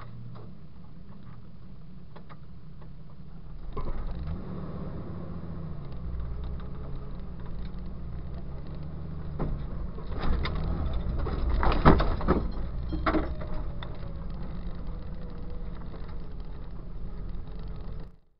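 Jeep engine running on a dirt trail, steady at first and then louder about four seconds in, its pitch rising and falling as the throttle changes. Several sharp knocks and clunks come about ten to thirteen seconds in, the loudest near twelve seconds, before the sound cuts off.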